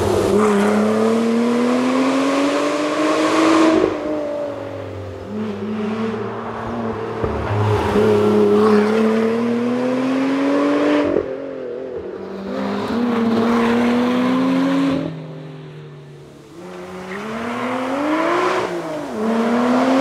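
Lotus Exige Sport 350's supercharged V6 accelerating hard on a tarmac rally stage. Its note climbs steadily over a few seconds, drops sharply, and climbs again several times. Near the end the car passes by, the pitch rising and then falling.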